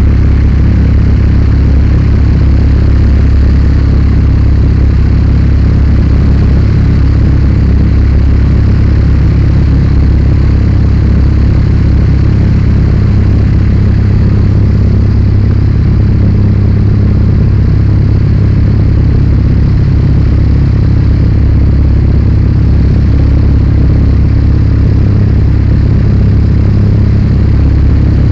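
Zlin Z 42's six-cylinder Avia M 137 piston engine and propeller running steadily in flight, heard inside the cockpit as a loud, even, deep drone with rushing air noise over it.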